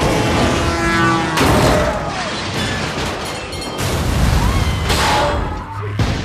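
Disaster-movie earthquake soundtrack: a deep continuous rumble under music, broken by sudden crashes and booms, about three of them, the first about a second and a half in.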